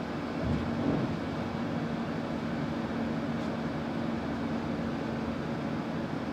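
Interior noise of a Solaris Urbino 18 articulated city bus on the move: a steady drivetrain hum over road and tyre noise, with a brief louder rumble about a second in.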